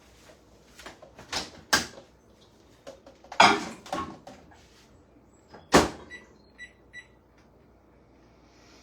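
Microwave oven being loaded: knocks and clunks as the door is opened and a dish set inside, a loud thump as the door shuts, then a quick row of short keypad beeps as the cooking time is entered.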